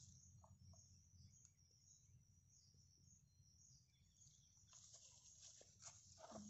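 Near silence: faint outdoor ambience with a low rumble and faint high-pitched chirping, and a few faint scrapes and clicks in the last couple of seconds.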